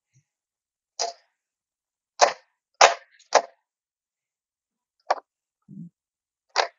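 Rapid 106E electric stapler firing staples from its foot pedal: about six sharp clacks at uneven intervals, three of them in quick succession around the middle, with a soft low thump near the end.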